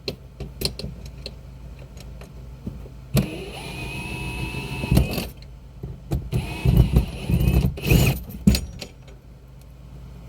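Cordless drill-driver running steadily for about two seconds as it backs out a headliner screw, then a run of knocks and rattles with a second short burst of the driver. Light clicks of handling before it.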